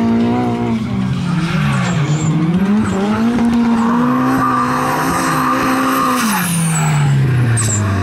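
Two drift cars sliding in tandem, their engines revving high, the pitch swinging up and down, with tyre squeal as they slide sideways. About six seconds in, the revs fall away steadily.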